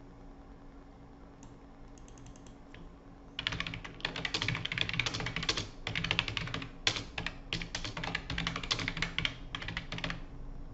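Typing on a computer keyboard. A few faint clicks come first, then from about three seconds in a fast run of keystrokes follows in quick bursts with short pauses.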